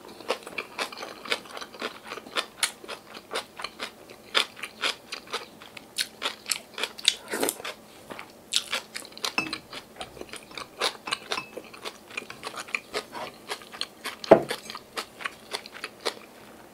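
Close-up chewing of a mouthful of yeolmu kimchi bibimbap, with rapid, irregular crisp crunches and wet mouth clicks. A single louder knock comes about fourteen seconds in.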